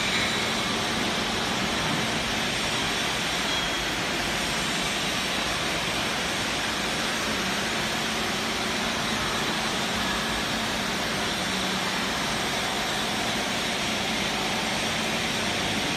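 CNC horizontal machining center running, a steady even whirring hiss with a faint low hum underneath.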